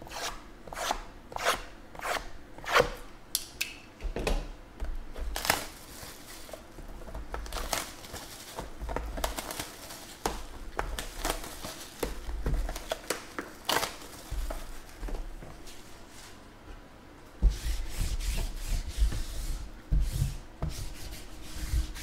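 Cardboard trading-card boxes handled and clear shrink-wrap plastic crinkling and tearing as the boxes are unwrapped. There are scattered sharp taps and crackles at first, and a denser stretch of rustling and rubbing for the last few seconds.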